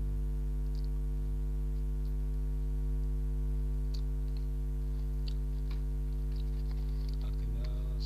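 Steady electrical hum, the loudest sound, with faint scattered clicks and smacks of a mouth chewing soft steamed bakpia bun.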